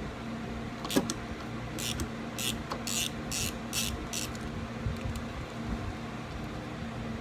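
Ratchet wrench loosening a car battery terminal clamp nut: a sharp metal click, then six short ratcheting strokes about half a second apart.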